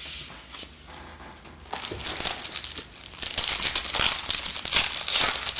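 A trading-card pack's wrapper being torn open and crinkled, the crackling growing louder and denser from about two seconds in.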